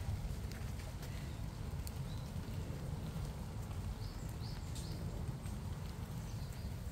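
Outdoor ambience: a steady low rumble with scattered light ticks, and a few short high chirps about four to five seconds in.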